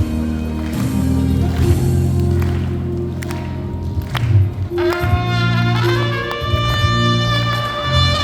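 Music with low, held notes and light clicks. About halfway through, a brass horn comes in loudly and slides up in pitch.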